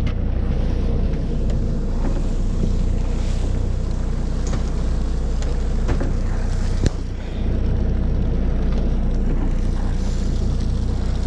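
Charter fishing boat's engine running at a steady low drone, with wind on the microphone. A single sharp knock about seven seconds in.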